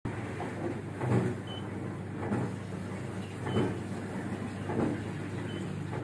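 IFB Neptune VX dishwasher running, a steady hum of its pump and water spraying inside, with a swell roughly every second and a bit. Three faint short high beeps sound over it.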